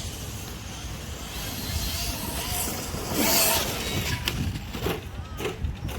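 Gas-powered 1/5-scale RC car engine running at a distance, swelling louder about three seconds in.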